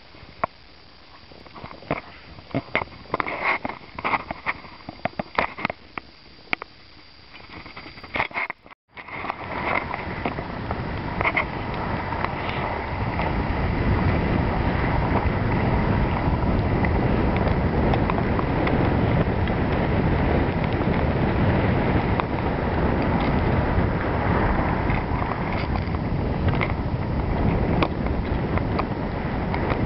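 Scattered clicks and crunches of snow and camera handling, then, after a brief break about nine seconds in, a steady rush of wind on the microphone and snow sliding underneath as the rider picks up speed down the slope; it builds over a few seconds and then holds steady.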